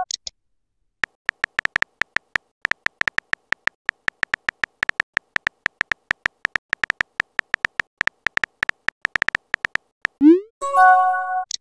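Rapid, regular phone-keyboard typing clicks for about nine seconds as a message is typed. Near the end they give way to a short rising swoosh and a chime, the message-sent sound.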